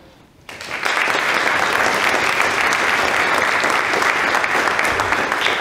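An audience applauding, a dense steady clapping that starts about half a second in.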